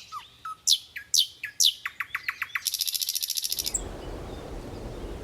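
Bird chirps: a few quick chirps that sweep downward, then a fast trill of short repeated notes. A steady hiss takes over a little past halfway.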